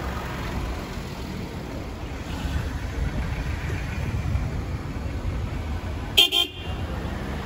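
Road traffic rumbling steadily on a busy street, with a car horn giving one short toot about six seconds in.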